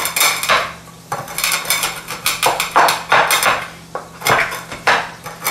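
Black peppercorns crushed under the bottom of a saucepan on a plastic cutting board: repeated crunching, scraping strokes, about two a second.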